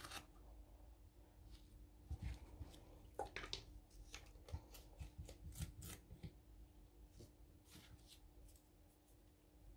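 Faint clicks and rustles of hands handling things on a tabletop: a small plastic bottle of leather paint picked up, its screw cap twisted off and set down. A faint steady hum runs underneath.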